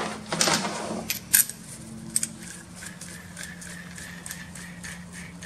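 Steel reusable hydraulic hose fitting parts handled on a workbench: light rustling and a few small metallic clicks, the sharpest about a second in, over a low steady hum.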